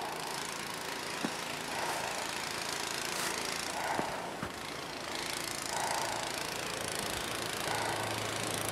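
A small engine running steadily, with a steady hiss over it.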